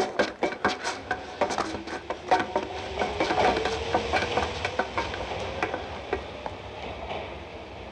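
Rapid clattering footsteps of several people running on hard ground and gravel, thinning out and fading toward the end, over a faint held tone.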